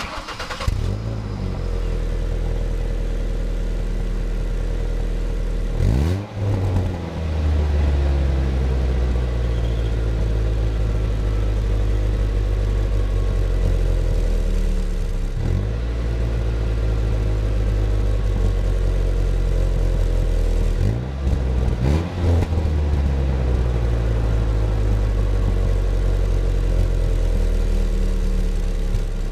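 A Ford Ranger's 2.3-litre four-cylinder starts up right at the beginning and idles through its stock exhaust. It is blipped into short revs about six seconds in, again around fifteen seconds, and twice more around twenty-one to twenty-two seconds. The exhaust has a puffing sound from a hole in the back of the system.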